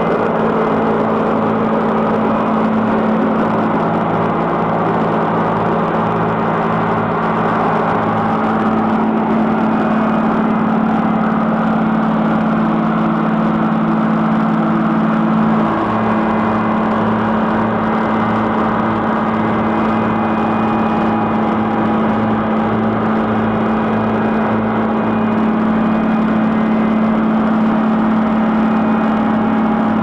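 Road reclaimer / soil stabilizer's diesel engine running steadily under load while its rotor grinds and mixes the roadbed soil: a loud continuous drone with a rhythmic low throb. One of its low tones drops out about halfway through.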